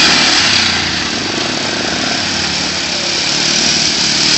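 ATV engine running as the quad drives through floodwater, with water splashing from its wheels.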